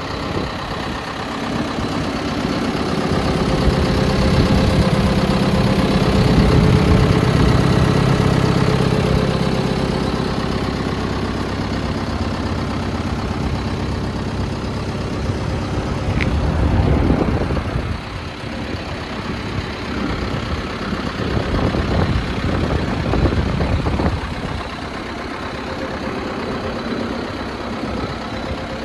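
John Deere 6130M tractor's diesel engine idling steadily, with a short click about sixteen seconds in.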